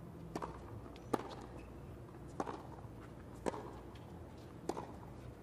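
Tennis rally: the ball struck back and forth by rackets, five sharp hits about a second apart over a low steady background.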